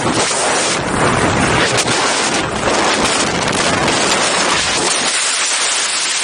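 Loud wind noise buffeting the camera microphone of a skydiver in freefall.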